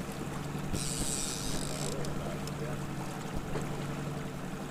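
Fishing boat's motor running steadily at trolling speed, a low even hum under wind and water noise, with a short burst of hiss about a second in.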